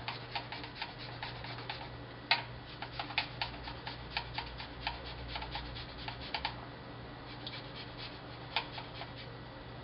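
Fresh ginger grated on a rasp grater: quick short scraping strokes, about three a second, becoming sparse for the last few seconds.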